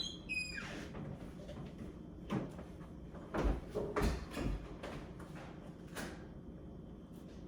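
Kitchen knocks and clunks while ice is fetched from the freezer: a short squeak with falling pitch at the start, then about five separate knocks spread through the middle.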